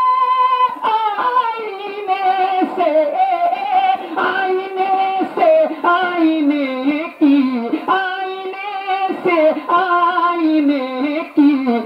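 Naat singing: a voice drawing out the verse in long, ornamented notes with a wavering vibrato, several of them sliding down in pitch.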